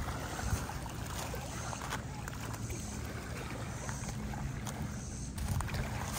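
Small waves lapping on a rocky lakeshore, with wind on the microphone, over the steady drone of a distant motorboat engine.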